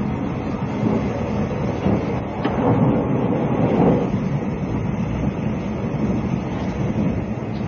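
Interior running noise of a moving 20-series sleeper coach: a steady rumble of wheels on rail, with one sharp click about two and a half seconds in.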